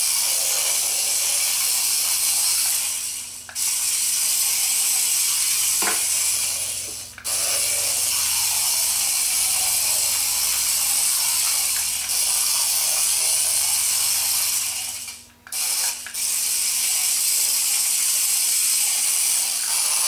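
Tiny Adventure Force Nano Racer RC car's electric motor and gears whirring at a high pitch while it drives, stopping briefly three times.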